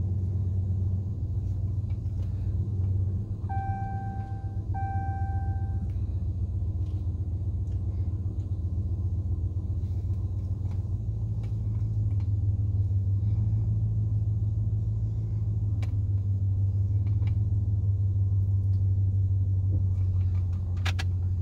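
Pickup truck driving slowly, heard from inside the cab: a steady low rumble of engine and road noise. About four seconds in, two electronic beeps of the same pitch, each about a second long, sound one after the other.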